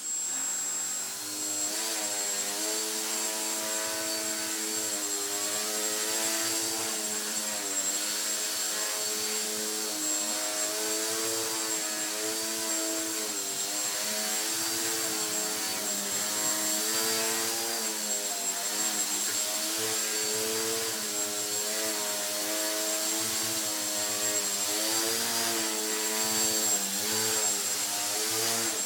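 Small electric RC plane's Turnigy 2204-14T brushless outrunner motor and propeller holding a nose-up hover, a continuous buzzing drone whose pitch keeps rising and falling as the throttle is adjusted to hold the plane in place. A thin steady high whine sits above it.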